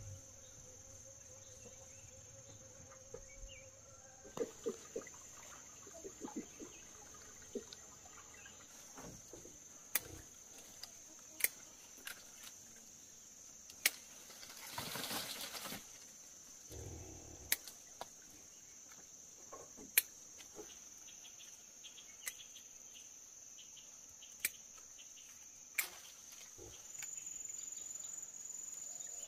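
Steady high-pitched insect chirring, crickets by its sound, with sharp clicks every second or two and a short rustle about halfway through.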